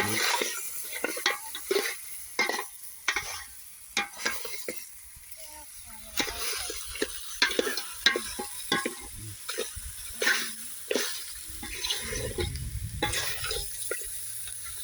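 Meat frying in a pan, sizzling while it is stirred, with irregular knocks and scrapes of the utensil against the pan.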